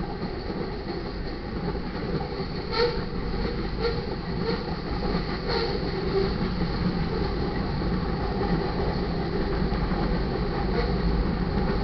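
Freight train cars rolling past: a steady low rumble of steel wheels on the rails, with a few irregular sharp clicks from the wheels.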